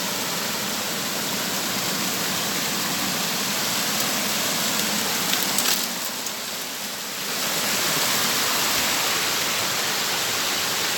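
Steady rushing of flowing water, a dense even hiss. About six seconds in, it briefly turns quieter and duller, then returns at full strength.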